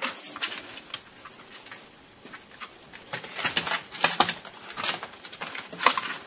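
Irregular scratching and rustling in a box as a pet skunk paws and digs after crickets, a run of quick scrapes in the middle and a sharper one near the end.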